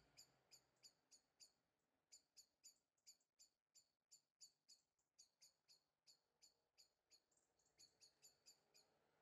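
Near silence with faint, high-pitched chirps repeating about three times a second, pausing briefly twice.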